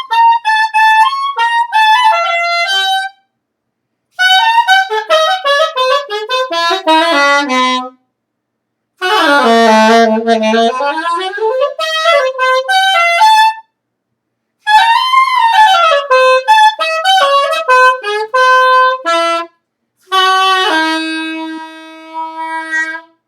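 A horn, saxophone-like, played solo in free, improvised phrases: five quick runs of notes up and down, broken by short pauses. The middle phrase dips to low notes, and the last ends in a few held notes that fade.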